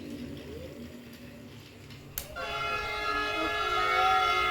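Model locomotive's built-in sound unit blowing its train horn. A click comes about two seconds in, then a long, steady horn chord of several tones.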